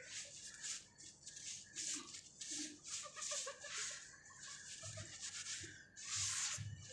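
Dry sand and sandy clumps crumbling in hands and pouring back onto a sand pile: a repeated gritty hiss of falling grains, with a longer, louder pour near the end.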